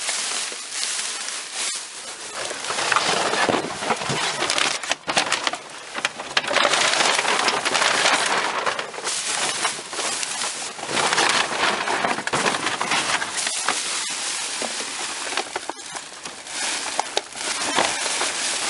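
Digging through trash in a dumpster: cardboard and plastic packaging rustling and crunching in repeated louder bursts, with scattered clicks and knocks.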